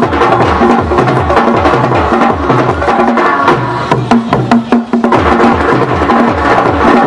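Live African hand-drum ensemble, djembes played in a fast, steady interlocking rhythm, with deep bass strokes repeating several times a second under sharp slaps.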